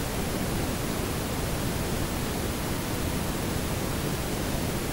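A steady, even hiss with no other sound in it, and a faint high whine running through it.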